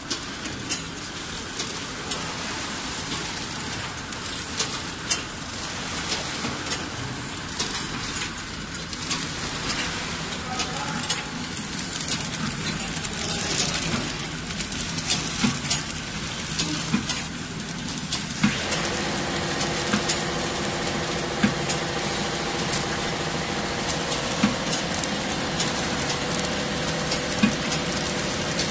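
CB-300S three-servo wire ball packing machine running, a steady mechanical noise with frequent sharp clicks. About two-thirds of the way through, a set of steady tones joins in.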